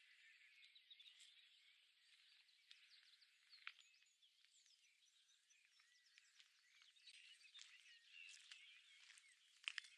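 Faint chorus of songbirds: many short chirps and quick trills overlapping throughout. A few sharp ticks come through it, the loudest just before the end.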